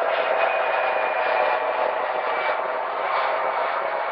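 Jet airliner engines at an airport: a steady rushing roar with a faint high whine running through it.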